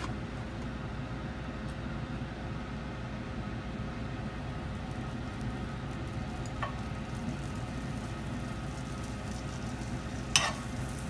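Steady low hiss of a lit gas hob under an empty frying pan, with a faint tap about six and a half seconds in and a sharper knock near the end as dabs of butter spread are put into the pan with a utensil.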